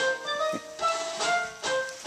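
Instrumental music: a melody of short pitched notes, played as the introduction before the singing begins.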